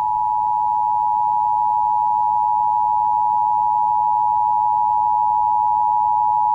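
Emergency Alert System attention signal: two steady tones sounded together just under 1 kHz (853 and 960 Hz), held without a break at an even loudness. It is the alert tone that heralds an emergency broadcast message.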